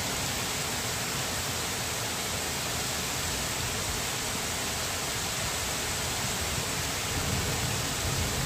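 Heavy rain pouring steadily, a dense even hiss. Near the end a faint, low rumble of light thunder swells under it.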